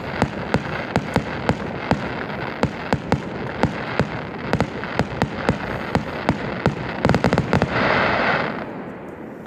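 Fireworks going off: a rapid, irregular run of sharp pops and cracks, several a second, over a continuous crackle. About seven seconds in, a dense flurry of pops gives way to a loud hissing rush that fades away near the end.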